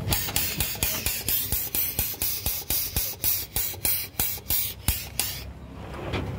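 Pneumatic grease pump cycling while grease is pumped through the hose to a bus chassis fitting: short hissing air strokes with a click at each, about four a second, that stop abruptly about five seconds in.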